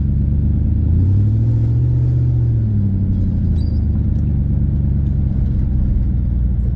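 A 5.3-litre V8 truck engine running loud through a broken exhaust while driving, heard from inside the cab. Its note climbs about a second in and settles back down a couple of seconds later, as the truck picks up speed and then eases off.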